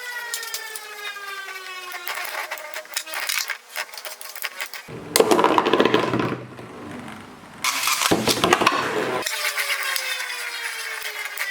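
Infinity Nado battle tops spinning and clashing in a stadium, giving rapid rattling clicks. A whine falls slowly in pitch as a top spins down, at the start and again near the end, with louder clattering in the middle.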